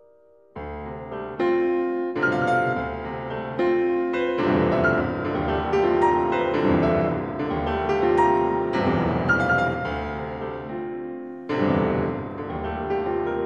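Solo piano playing a dense contemporary passage: a sudden loud entry about half a second in, then many quick struck notes and chords ringing into one another, with another sharp loud attack near the end.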